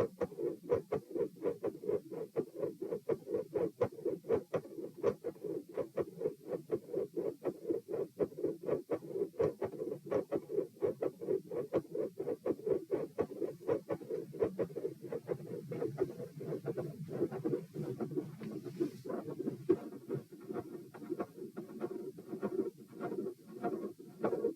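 Human heartbeat recorded through a stethoscope at the pulmonic area: a fast, steady lub-dub with a mid-systolic murmur and a very loud second heart sound (S2).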